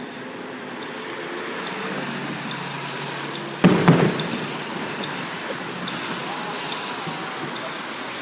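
Two firework bangs in quick succession, about three and a half seconds in, over a steady hiss.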